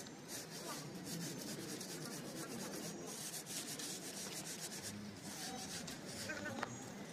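A wooden straight-edge scraping back and forth over wet cement mortar, screeding it level, in repeated rough rubbing strokes.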